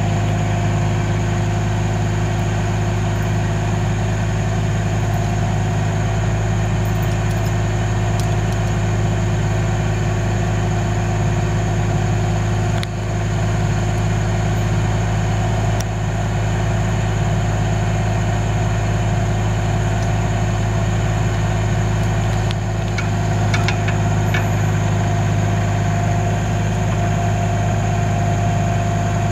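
Bobcat mini excavator's diesel engine running steadily at a constant speed, with a few faint clicks.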